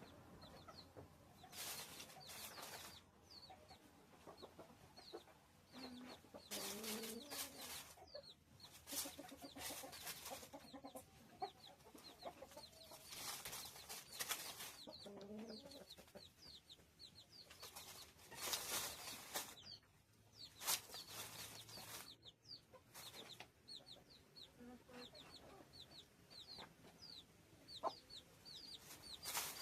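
Chickens clucking softly now and then under a steady stream of small, quick bird chirps, with about five bursts of hiss lasting a second or two each.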